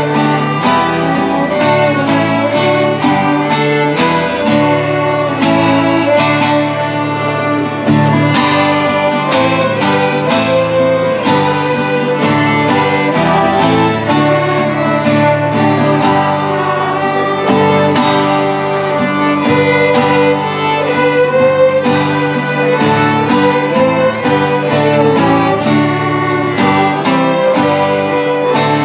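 Fiddles playing a tune together over an acoustic guitar strumming a steady rhythm.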